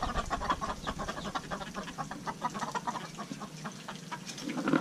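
Flock of backyard chickens feeding on fish guts: a dense patter of quick pecks and short soft clucks.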